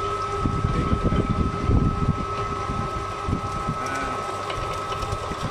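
Electric vegetable slicing machine running with a steady motor whine while shallots are pressed down its feed tube and sliced, with irregular low rumbling from the cutting and handling.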